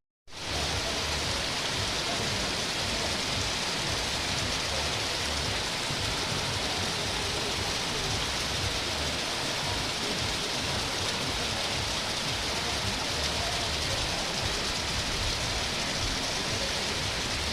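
Heavy rain falling in a steady downpour, an even hiss of drops on surfaces.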